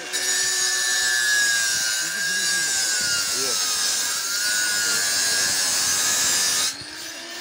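Electric angle grinder grinding a river stone into a small shivling: a loud, steady grinding hiss over the motor's whine. The whine sags in pitch midway as the disc bites under load. The grinding noise cuts off abruptly near the end, while the motor keeps running.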